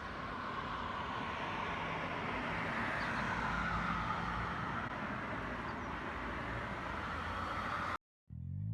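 Steady rumble and hiss of a moving vehicle, with a faint tone sliding slowly lower; it cuts off abruptly near the end.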